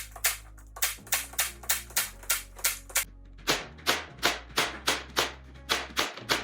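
Makita DPT353 cordless 23-gauge pin nailer firing pins in quick succession, about three shots a second with a brief pause partway, tacking glazing bead into a door frame. Background music plays underneath.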